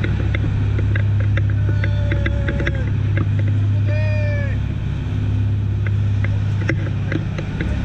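A dive boat running at speed across open sea: a steady low engine drone under the rush of wake and spray, with frequent short knocks and rattles as the hull meets the chop.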